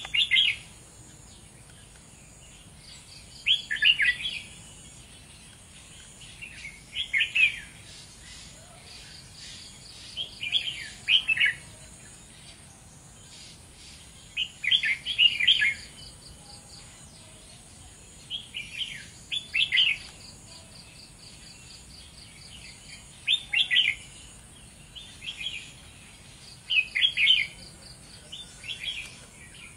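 Red-whiskered bulbul singing: short phrases of quick notes, each about a second long, repeated every three to four seconds.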